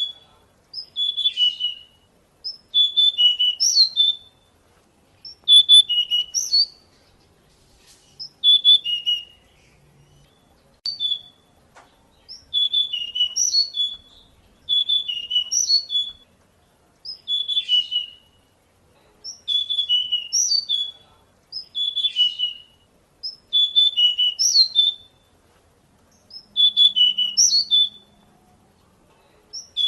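Pied bushchat singing: short, quick whistled song phrases repeated about every two seconds, with one longer pause about a third of the way through.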